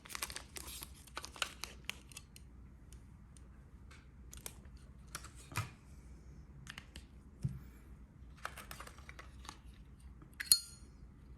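Scattered small clicks, taps and rustles of Zippo lighters and their boxes being handled. About ten and a half seconds in there is a sharper metallic click that rings briefly.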